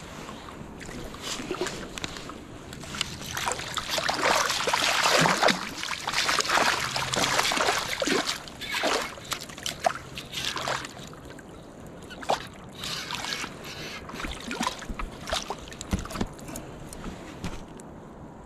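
Water splashing and sloshing in irregular bursts, heaviest in the first half, then thinning out to scattered splashes.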